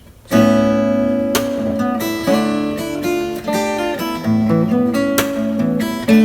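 Acoustic guitar playing an instrumental intro, a chord struck just after the start followed by strummed chords and picked melody notes.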